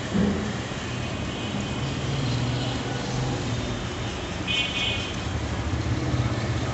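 Road traffic noise with engines running steadily, and a short high horn beep about four and a half seconds in.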